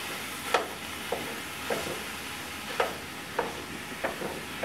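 Raw ground beef sizzling in a hot cast iron skillet as it is broken up by hand: a steady hiss with a few irregular sharp clicks.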